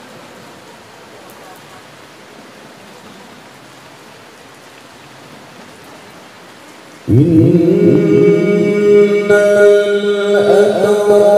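About seven seconds of steady background hiss, then a man's solo voice starts Quranic recitation (tilawah) through a microphone. The voice is loud and holds long, steady melodic notes, and it steps up to a higher pitch about ten seconds in.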